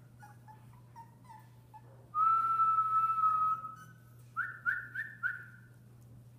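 A person whistling to the puppies: one long, steady whistle, then four short rising whistles in quick succession.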